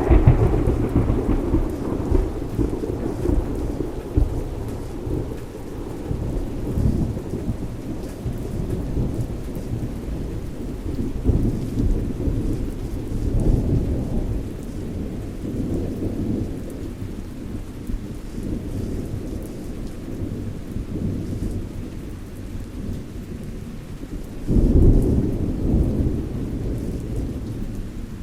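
Thunderstorm: thunder rumbling almost without pause over steady rain. A loud clap right at the start fades away over a few seconds, and another strong burst of thunder comes about 25 seconds in.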